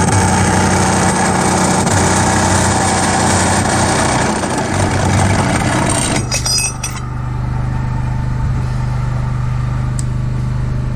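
A vehicle engine running with loud, full noise over a steady low hum. About six seconds in there are a few clicks, the noise drops away, and a quieter steady low hum carries on.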